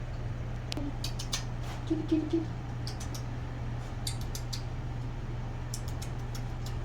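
Irregular bursts of small clicks, several in quick succession, from TV remote buttons being pressed while typing on the Roku on-screen keyboard, over a steady low hum.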